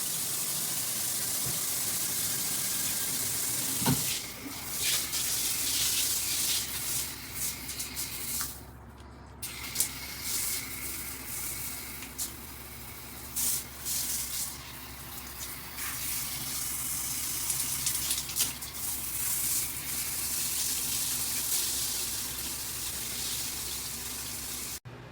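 Water spraying from a handheld shower head and splashing, a steady hiss that starts to rise and fall unevenly about four seconds in.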